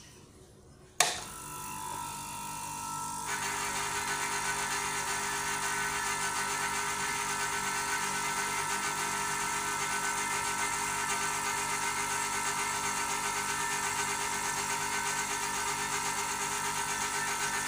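Household air-conditioner compressor converted into an air compressor switches on with a sharp click about a second in, then runs with a steady hum. A steady hiss joins it about three seconds in.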